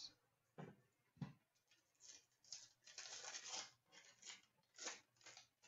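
Trading cards being handled and flipped through: a run of faint, short rustles and slides, busiest around the middle.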